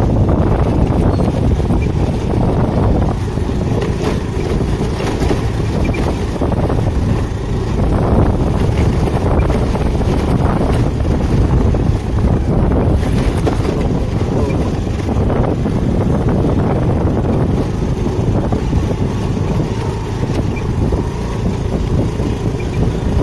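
A Honda scooter's engine running as it rides slowly along a dirt road, mixed with wind rushing over the microphone; a loud, steady low rumble throughout.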